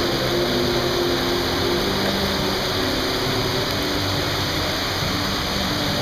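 Indoor waterfall: water sheeting down a tall wall and splashing into a shallow pool, a steady, even rush.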